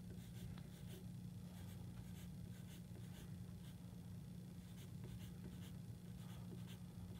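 Wooden graphite pencil sketching on paper: a faint run of short, quick scratching strokes as feathers are drawn, over a steady low hum.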